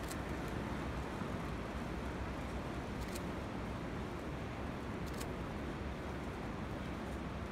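Steady rumbling ambience of a large indoor hall as a big formation of uniformed officers marches across artificial turf, with a few faint sharp clicks near the start, about three seconds in and about five seconds in.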